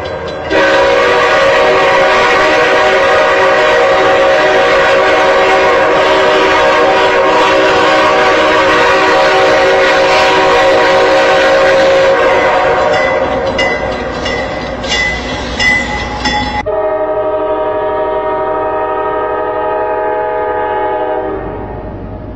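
Locomotive air horn sounding one long steady blast of several tones at once, with a few sharp clicks about 13 to 16 seconds in. It cuts abruptly to a different, quieter train horn chord, which holds until it drops away near the end.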